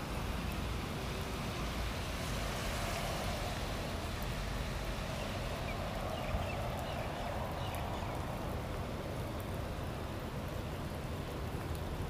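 Steady hiss of rain falling on a paved street and road, with a low wind rumble on the microphone.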